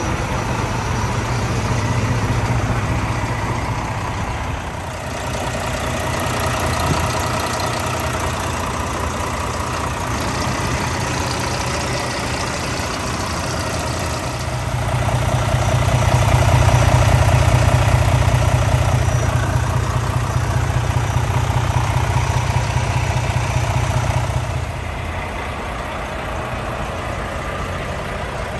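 A 2019 Volvo VNL semi truck's Volvo D13 inline-six diesel idling with a steady low drone. The idle is heard louder for about ten seconds midway, close to the open engine bay.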